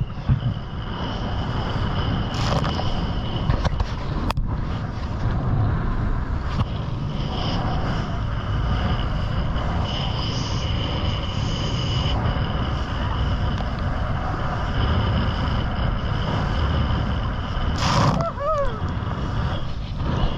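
Motorboat under way: the engine runs steadily under a heavy rush of wind and water noise, with a steady high whine on top. A short wavering sound cuts in near the end.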